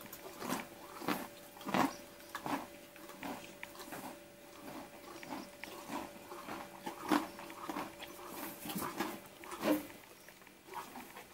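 A horse chewing close by: a regular, crunchy chewing sound of about one and a half chews a second.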